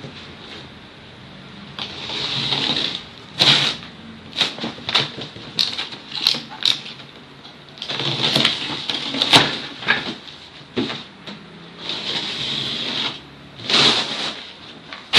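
Packaging of a stationary exercise bike being handled during unboxing: stretches of rustling and scraping of plastic and cardboard, with many sharp knocks and clicks of parts and packing being moved.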